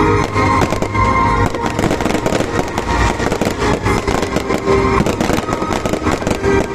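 Fireworks going off in quick succession, a dense run of bangs and crackles, with music playing along.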